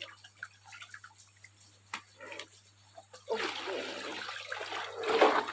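A few light knocks and clicks, then water sloshing and splashing from about three seconds in, growing louder near the end.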